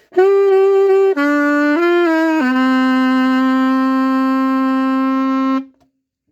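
SML saxophone, not yet repaired, played solo. A few short notes step down and back up, then it settles on a long held low note for about three seconds and stops cleanly to end the phrase.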